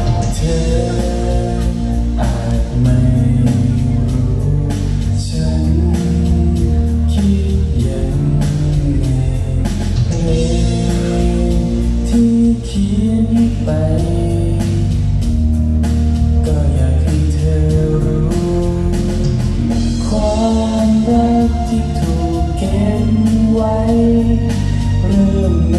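Man singing live into a handheld microphone over amplified musical accompaniment with a steady beat.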